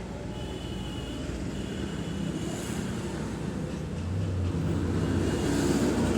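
A motor vehicle's engine running steadily, its low hum growing louder about four seconds in.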